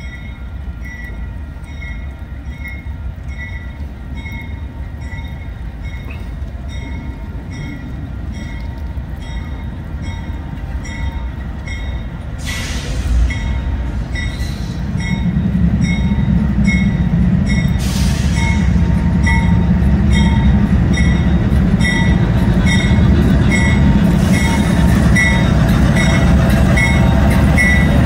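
CSX freight train's diesel locomotives approaching, the low engine rumble building from about halfway in and staying loud as the locomotives pass. Over it a high ding repeats a little under twice a second, with two short hisses partway through.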